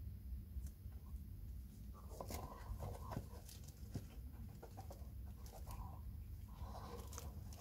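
Hands handling a foam shoe insole and a card insert over a sneaker in a cardboard shoebox: soft rustling, scraping and light taps that come in two short spells, over a low steady hum.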